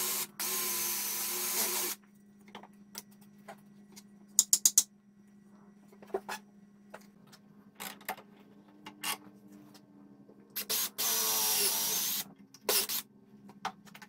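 Cordless drill-driver running in two short bursts of steady motor whine, one at the start (a brief blip, then about a second and a half) and another a little past the middle. Between them, a quick run of four sharp clicks and scattered light knocks of handling tools on the bench.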